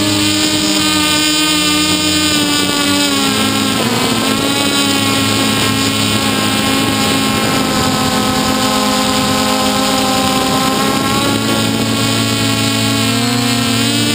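Hexacopter's electric motors and propellers whining steadily, heard close up from the camera on the drone, with wind noise. Several pitches drift apart and together as the motors adjust their speeds, shifting about three seconds in and again near the end.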